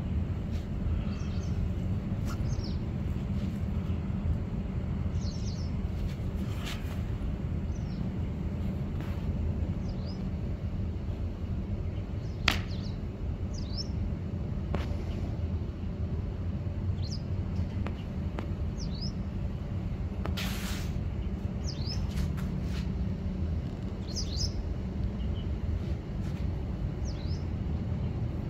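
Outdoor ambience: a steady low background rumble with small birds chirping, short chirps scattered throughout. There is one sharp click near the middle and a brief hiss about two-thirds of the way through.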